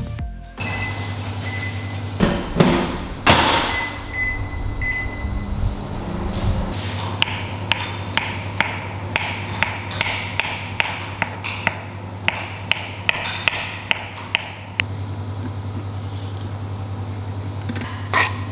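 Knife slicing a banana on a wooden chopping board, the blade tapping the board in quick even cuts about two to three times a second, over a steady low hum.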